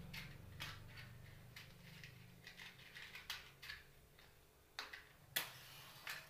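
Light clicks and clinks of kitchen utensils being handled at a stove, a dozen or so irregular taps with the sharpest knock about five and a half seconds in. A low hum fades out over the first two seconds.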